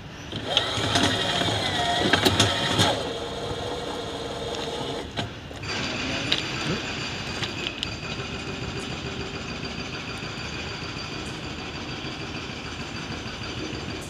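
Machinery running with a steady whine of several held high tones from about six seconds in, after a louder, shifting mechanical sound in the first few seconds.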